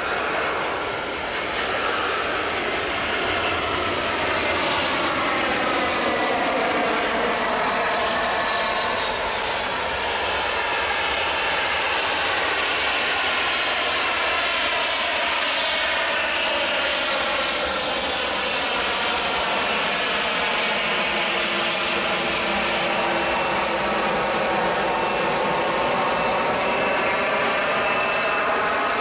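Boeing 737-700 BBJ's twin CFM56-7 turbofan engines running at taxi power as the jet rolls past. It is a steady, loud jet whine and rush whose tone sweeps with a phasing quality as the aircraft moves by.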